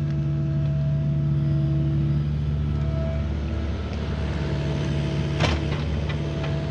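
Diesel engine of a Cat mini excavator running steadily as it digs and swings a bucket of dirt, the engine note shifting slightly as the hydraulics take load. A single sharp knock about five seconds in.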